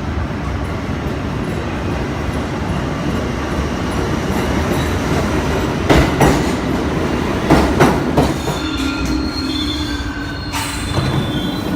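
New York City subway train running with a steady rumble. There are a few loud clanks around the middle, then high, steady wheel squeal sets in over the last few seconds.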